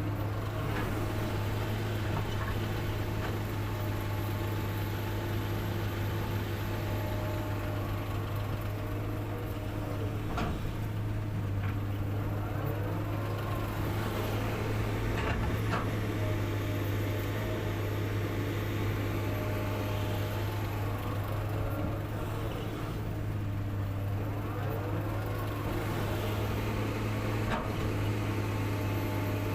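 Excavator's diesel engine running steadily under work, with a few light knocks.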